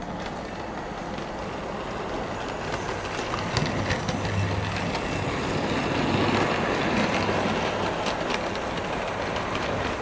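Bachmann S&D 7F 2-8-0 model locomotive running on a model railway, hauling a rake of coaches: a steady motor hum and the rumble of wheels on the track, with small clicks over the rail joints. It grows louder toward the middle and eases off a little near the end.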